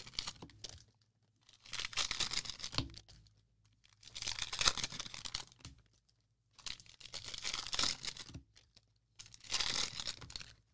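Crinkly plastic wrappers of trading-card cello packs being crumpled and torn open, in about five separate bursts of crackling with short quiet gaps between.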